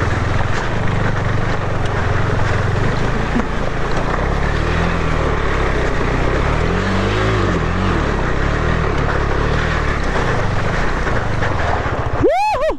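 KTM 390's single-cylinder engine working under throttle as the motorcycle is ridden through a water crossing, with rushing noise of water and wind over it. The revs rise and fall several times midway.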